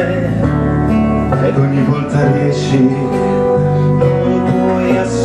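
A song: a male singer performing a pop ballad over a guitar-led band backing.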